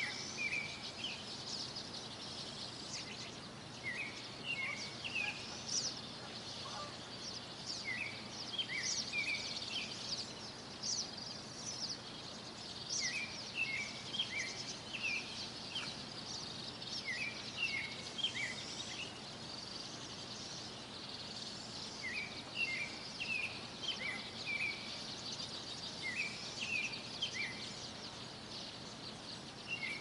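Songbirds singing in a morning chorus. One bird repeats a short phrase of several quick, down-slurred notes about every four to five seconds, over many higher chirps from other birds.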